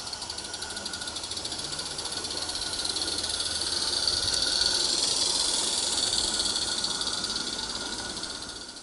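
Roundhouse Lady Anne live steam garden-railway locomotive running past with rapid, hissing exhaust chuffs. The sound grows louder as it passes closest, about four to five seconds in, then fades away.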